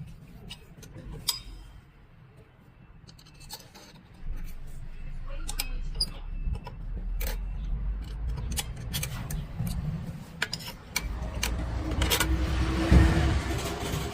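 Metal clinks, taps and scraping of tools and parts being handled while the brake is refitted to an electric scooter's rear wheel, over a low rumble of handling that starts about four seconds in and is loudest near the end.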